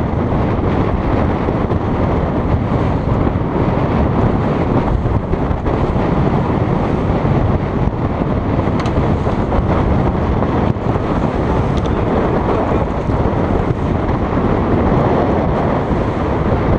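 Steady, loud wind buffeting the microphone, mixed with the rush of water along the hulls of a trimaran under sail.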